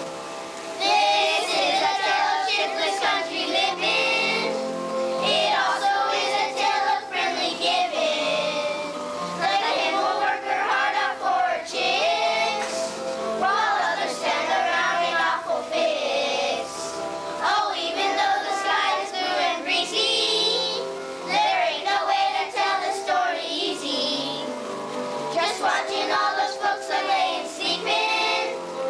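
A group of young children singing together in phrases, with instrumental accompaniment holding steady notes underneath.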